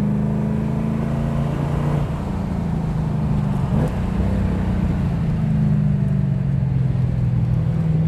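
Holden Commodore HDT VH Group 3's V8 engine heard from inside the cabin, running at steady part-throttle revs, with a brief lift about two seconds in and the revs easing down a little in the second half.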